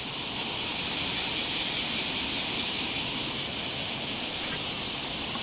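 A high, steady hiss of insects singing in the summer heat. A rapid pulsing song runs on top at about five pulses a second and fades out about three and a half seconds in.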